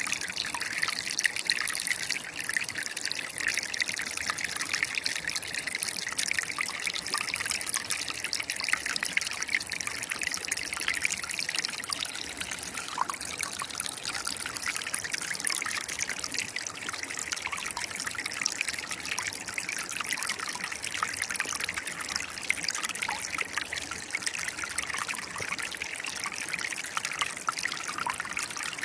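Shallow river water trickling and splashing steadily, with no break or change.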